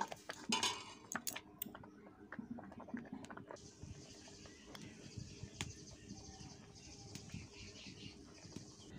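A metal ladle clicks and scrapes against a metal kadai as boiled masoor dal is mashed. From about three and a half seconds in, a faint steady hiss of the liquid simmering and bubbling in the pan takes over, with scattered small pops.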